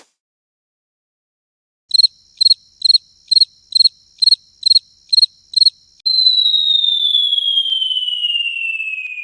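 Synthesized motion-graphics sound effect: a run of about nine quick high chirping beeps, then a long high tone that glides slowly downward.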